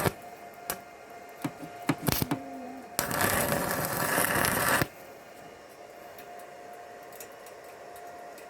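Stick welding arc crackling in a burst of about two seconds, starting about three seconds in. Before it come scattered clicks and taps; after it a steady hum carries on until the sound cuts off at the very end.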